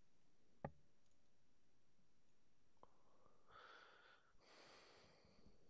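Near silence, broken by a single sharp click about half a second in and a fainter tick a couple of seconds later as the metal wrist pin and connecting rod are handled. Two soft hisses follow in the second half.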